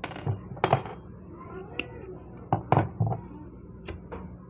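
A string of sharp clicks and clinks from small tools being handled. A lighter is struck near the end, and its flame is used to melt the trimmed end of nylon PP yarn.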